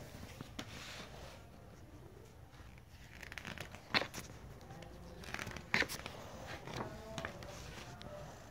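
Pages of a picture book being handled and turned: soft paper rustling with two sharp page snaps, about four and six seconds in.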